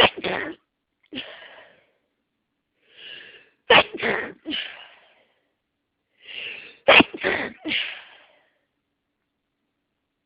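A person sneezing in bouts: a sharp sneeze right at the start, then about four and seven seconds in a quick breath in followed by a loud sneeze and two weaker ones close after it.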